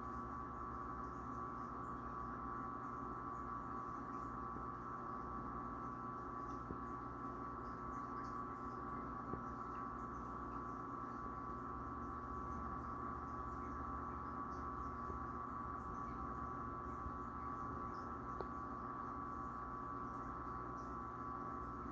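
Steady hum of running aquarium equipment, with a high whine held over it.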